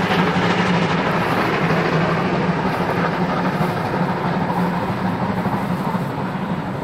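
Heavy steam-hauled freight train running away into the distance: a steady rumble of the train on the rails, fading slowly.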